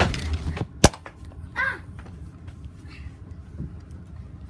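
A single sharp knock about a second in, followed by a brief short vocal sound.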